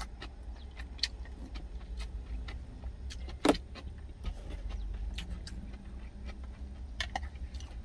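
Light clicks and knocks of a wooden spoon and food containers during eating, with one sharper clack about three and a half seconds in, over a steady low rumble.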